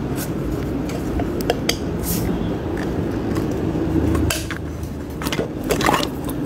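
Scattered clicks and scrapes of a thin metal rod prying at an LED bulb's plastic housing and circuit board to lever the board out, over a steady low background noise.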